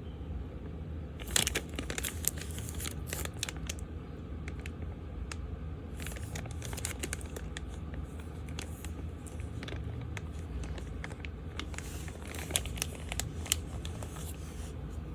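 Hands handling crinkly material during a PC build, giving irregular bursts of crinkling and sharp little clicks in a few clusters, over a steady low hum.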